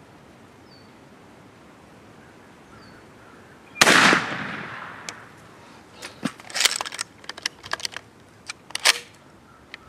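A single 20-gauge shotgun shot about four seconds in, fired with a light target load, with a short echoing tail. About two seconds later comes a run of short, sharp clicks and knocks from handling the gun.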